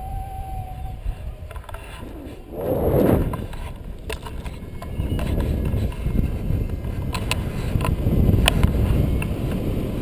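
Wind buffeting the microphone of a camera on a paraglider in flight, a rough low rumble that surges loudest about three seconds in. A steady high tone stops about a second in, and a few sharp clicks come near the end.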